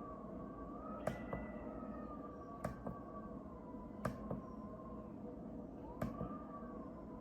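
Built-in speaker of an APUZOM sunrise alarm clock playing a faint, wavering tone that slowly rises and falls. A sharp click comes every one and a half to two seconds.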